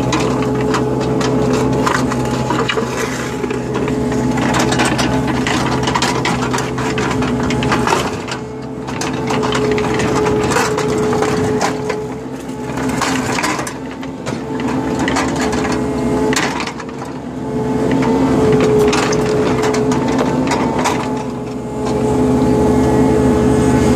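Excavator running, with a steady engine note and whine, while its bucket digs into stony ground. Rocks and dirt crunch and knock irregularly, and the engine dips briefly under load several times.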